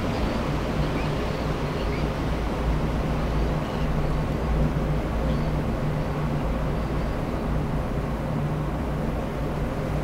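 Steady low rumbling drone with a constant low hum underneath, and a few faint short high chirps scattered through it.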